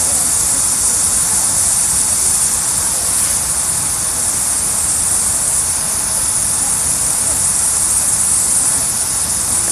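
Water fountain splashing, a continuous even rush of falling water.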